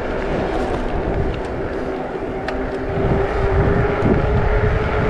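Wind buffeting the microphone while riding, a low rumble, with a steady high-pitched hum throughout and a few faint ticks.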